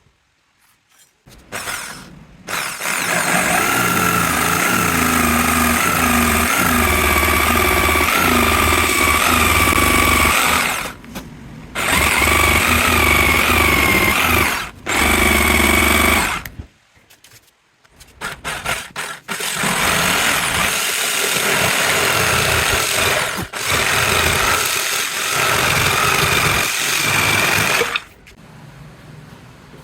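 Electric woodworking power tool running in long stretches, its motor pitch wavering and dipping as it works under load. It stops briefly twice and cuts off near the end.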